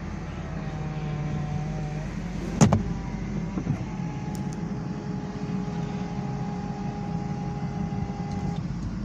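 Power convertible top of a 2005 Ford Thunderbird being raised: electric motors whine steadily for about two seconds, a knock comes about two and a half seconds in, then a second steady motor whine runs and stops shortly before the end.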